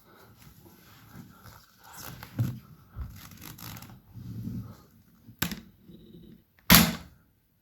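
Soft-bullet toy rifle being handled, with rustling and small clicks, then two sharp snaps from the gun, a short one about five seconds in and a louder one near the end.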